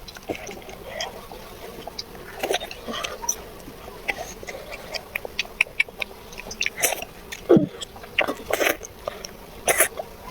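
A child eating: scattered short clicks and smacks of chewing, with a few brief vocal sounds.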